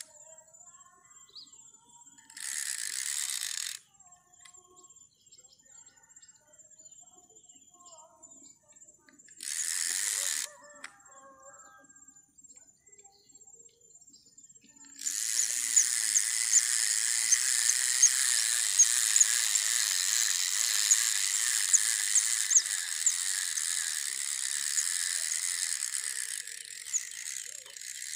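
Spinning fishing reel being cranked, a whirring with fine clicking from its gears. Two short turns come in the first half, then a steady retrieve of about eleven seconds that fades out near the end.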